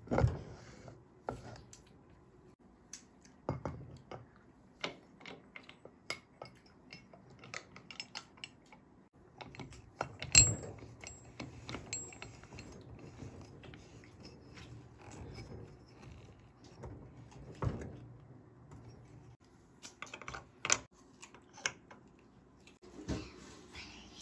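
Scattered clicks and knocks of kitchen utensils and dishes being handled during cooking prep, with a handful of louder knocks, the loudest about ten seconds in.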